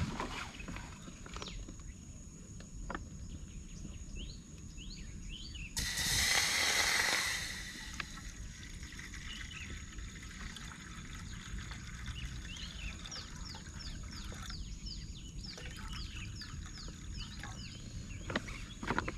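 Forest ambience: small birds chirping, many quick falling chirps that come thickest in the second half, over a steady thin high insect drone. About six seconds in, a loud rushing hiss lasts about two seconds.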